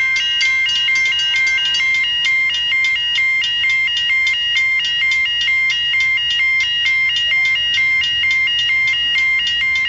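Railway level crossing warning bell ringing rapidly and steadily, about four strikes a second, warning that a train is approaching while the boom gates are down.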